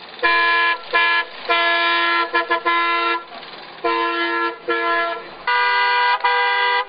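Old car horns honking in a run of blasts: two short toots, a long blast of about a second and a half, more toots, and near the end two blasts at a higher pitch.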